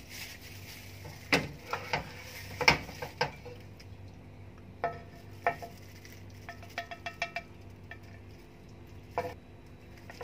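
A spatula knocking and scraping against a non-stick wok and a plate while meat is dished out: scattered sharp clinks, with a quick run of light ringing taps about seven seconds in, over a faint steady hum.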